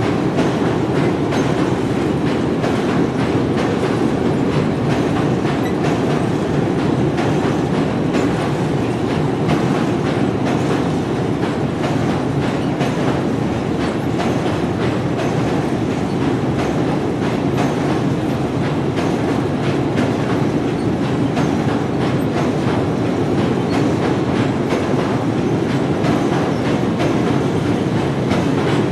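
Train running steadily along the track: a continuous rumble with quick, irregular clicks of the wheels over the rails.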